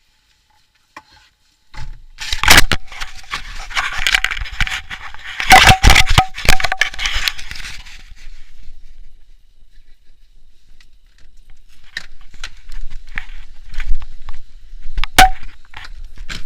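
Loud scraping and rustling with sharp clicks and crackles, heaviest in the first half after about two seconds of quiet, then coming in scattered bursts.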